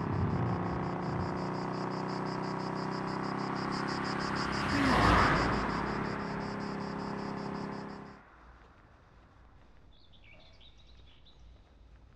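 Summer insects chirping in a rapid, even pulsing trill over a low steady hum, with a vehicle passing about five seconds in, swelling and fading. At about eight seconds it all cuts off to a much quieter background with a few faint high chirps.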